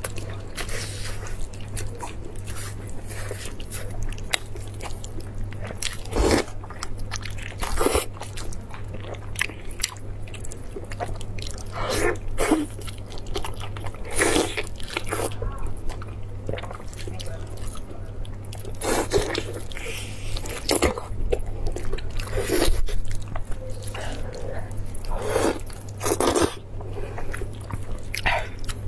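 A person biting and chewing big mouthfuls of roasted beef rib meat, with loud, irregular bites every second or two over a steady low hum.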